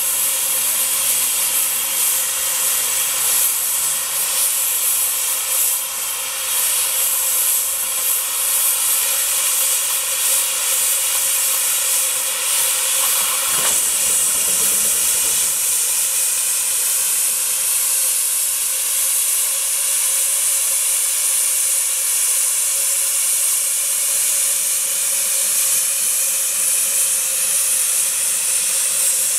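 Fowler steam roller's boiler venting steam with a loud, steady hiss that holds without letting up.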